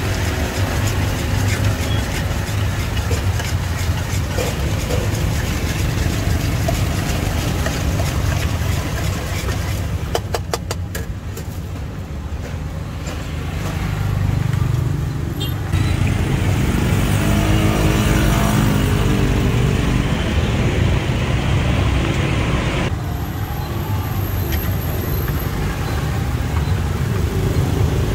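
Steady street traffic noise, with a run of quick clicks about ten seconds in and one vehicle engine passing close about eighteen seconds in.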